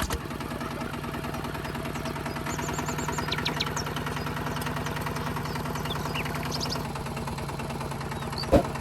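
Small engine of a DIY mini tractor running steadily with a fast, even pulse. Birds chirp over it, and there is a brief thump near the end.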